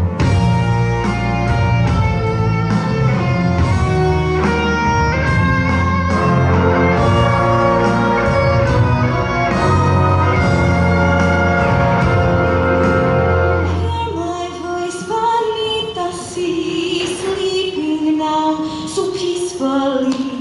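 Women's show choir singing with a live backing band. About fourteen seconds in, the band's bass drops out and the voices carry on more exposed.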